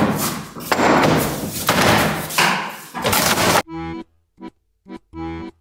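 Hammer blows on a chisel knocking and scraping at the base of a wall, with repeated sharp impacts. About three and a half seconds in this cuts off suddenly, and light music in short, detached chords begins.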